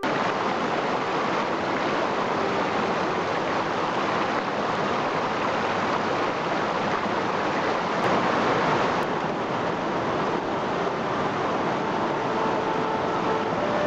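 Shallow mountain river rushing over rocks and rapids: a steady, unbroken wash of water noise.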